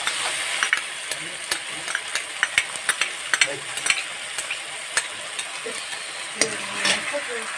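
Chopped onions, garlic and chilies frying in hot oil in a wok: a steady sizzle with many sharp crackles and pops.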